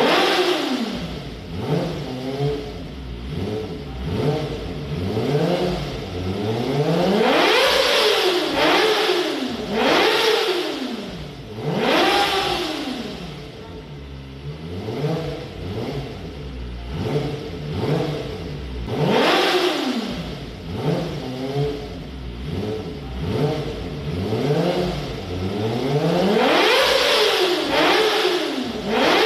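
Kawasaki ZX-25R's 249 cc inline-four with an Akrapovic exhaust, revved up and down again and again, its pitch climbing and falling with each blip of the throttle. There is a quieter stretch of lower revs around the middle.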